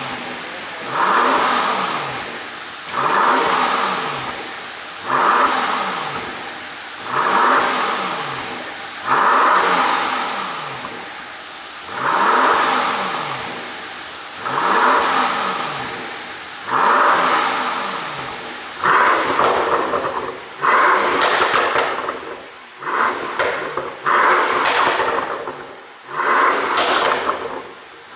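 Mercedes-AMG S65's twin-turbo V12 revved in repeated short blips, roughly one every two seconds, each falling back with exhaust crackle on the overrun from an ECU pop-and-bang tune. From about two-thirds of the way in the blips come closer together and the crackle grows more ragged.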